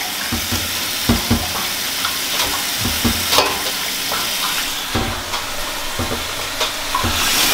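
Kitchen faucet running into a stainless steel sink full of collard greens, a steady hiss of water with splashing, leaf rustling and small knocks as hands push the wet leaves around and lift them into a pot. The water gets a little louder just before the end.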